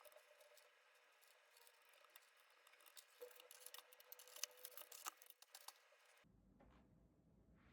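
Faint scattered plastic clicks and taps of keycaps being pressed onto a mechanical keyboard's switches. About six seconds in, the sound cuts off abruptly to a low steady hum.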